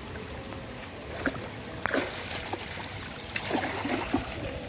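Water trickling and splashing around a mesh keep net full of live fish, with a few sharp clicks.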